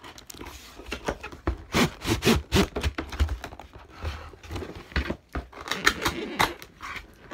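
Hard plastic clicks, knocks and scrapes of Nerf blaster parts being handled and pushed together, irregular and several a second at times.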